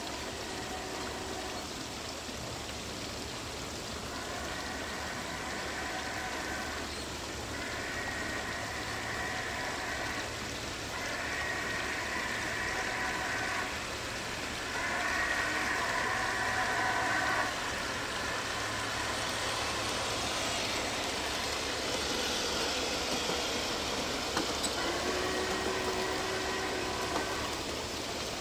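G-scale model steam locomotive's chime whistle from its Zimo sound decoder, sounded in four long blasts of about three seconds each and one more near the end, over a steady rushing noise from the running train. From about two-thirds of the way in, the passenger cars rolling close by on the track add a brighter hiss.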